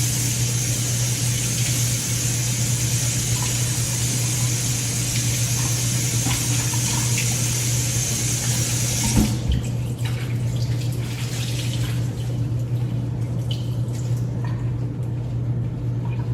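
Water tap running as a cleaning towel is rinsed under it, shut off abruptly about nine seconds in. Softer scattered water sounds and a few small clicks follow. A steady low hum runs underneath.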